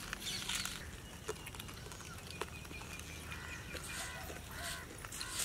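Domestic fowl calling, a few short calls in the second half, over scattered light clicks.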